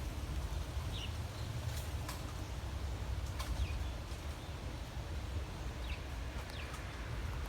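Outdoor ambience: a steady low rumble with several short bird chirps, each sliding down in pitch, scattered through it.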